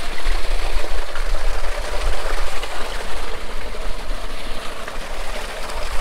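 Water rushing steadily from an ice-encased sump-pump discharge pipe, with wind rumbling on the microphone.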